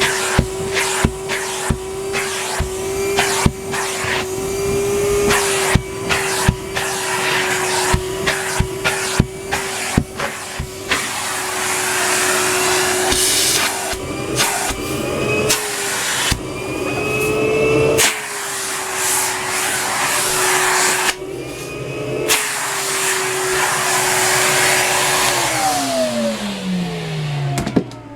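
Numatic Henry HVR200A2 vacuum cleaner running and sucking up party debris, with a steady motor hum and a rapid clatter of bits rattling up the hose in the first half. The motor pitch rises briefly a couple of times midway, and near the end the vacuum is switched off and the motor winds down.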